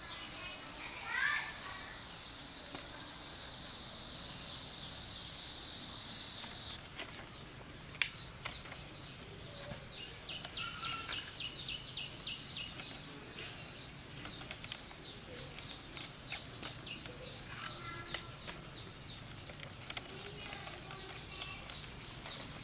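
Insects calling outdoors: a regular high-pitched chirp repeats throughout, over a steady high buzz that cuts off suddenly about seven seconds in. A bird gives a few short rising chirps about a second in.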